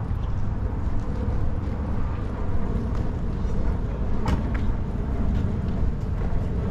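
Outdoor road traffic as a steady low rumble, with one sharp click about four seconds in.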